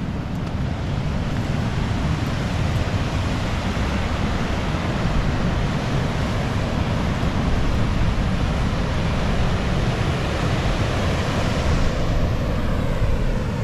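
The Ord River running high and rushing steadily over a concrete causeway, with wind rumbling on the microphone.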